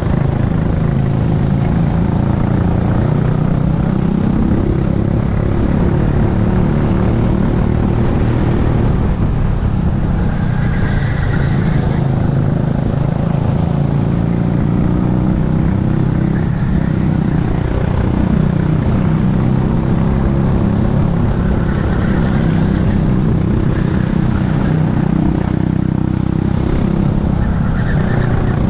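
Racing kart engine running hard at race pace, its pitch rising and falling as the driver accelerates out of corners and lifts into them, heard from a helmet-mounted camera.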